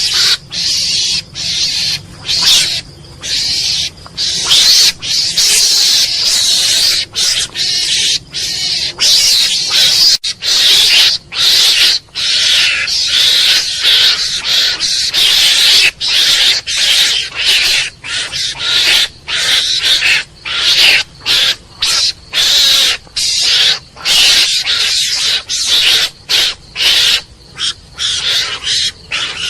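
Mongoose calling: a long run of harsh, raspy calls, broken by brief gaps several times a second.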